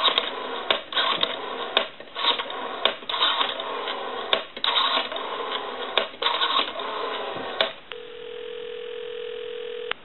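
A red AT&T 500 rotary desk telephone, built by Western Electric, being dialed: the dial is turned and spins back again and again, heard as stretches of rushing line noise with short breaks between them. About eight seconds in the dialing ends and a steady ringback tone sounds for about two seconds, the sign that the call is ringing through.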